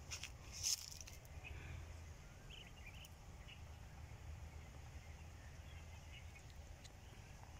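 Faint outdoor ambience: a steady low rumble with a few short, high chirps scattered through it and a brief click near the start.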